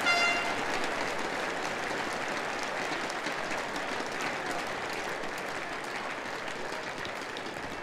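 Large arena crowd applauding, a dense steady clatter of clapping that eases off slightly toward the end. A short horn-like tone sounds right at the start.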